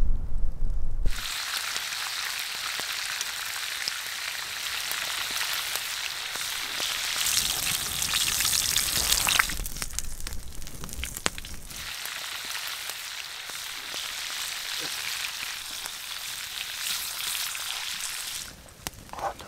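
Food sizzling in a frying pan, a steady hiss with small pops that starts about a second in, drops away briefly around the middle, comes back and fades near the end. A low rumble fills the first second.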